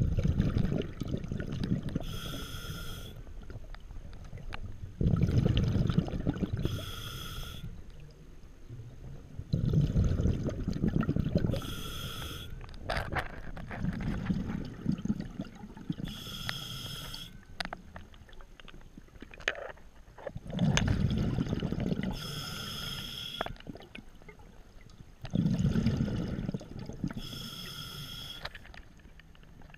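A scuba diver breathing through a regulator underwater, about one breath every five seconds. Each exhale comes out as a rumbling burst of bubbles, and each inhale draws a short hiss through the demand valve. About six breaths are heard.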